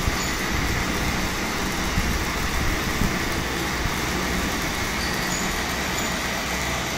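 Several battery-powered toy trains running on plastic track, their small motors and wheels making a steady whir.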